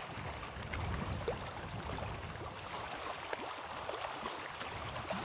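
Small waves lapping and gurgling at the water's edge, with scattered light splashes and a low rumble of wind on the microphone about a second in.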